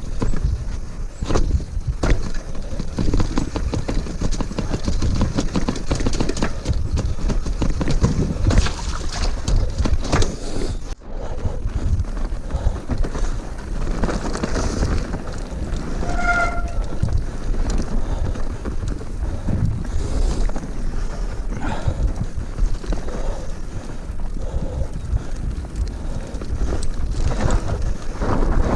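Mountain bike ridden downhill on a dirt trail, heard from an action camera: wind buffeting the microphone over steady tyre noise, with frequent rattles and knocks as the bike goes over bumps. A brief high squeak sounds about halfway through.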